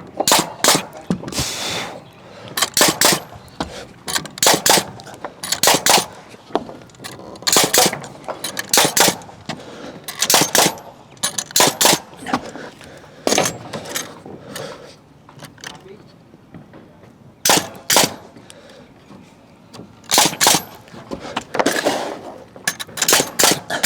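Framing nail gun firing nails into timber wall framing, shot after shot in irregular runs, often two or three in quick succession, with a short lull about two thirds of the way through.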